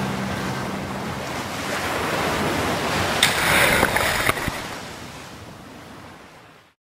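Ocean surf washing on a beach, a wave breaking about three seconds in, then fading out to silence just before the end. A low sustained music chord dies away under it in the first second.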